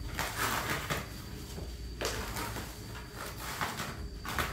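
Utility knife slicing through packing tape and cardboard on a shipping box, in several scraping strokes with cardboard flaps rustling between them.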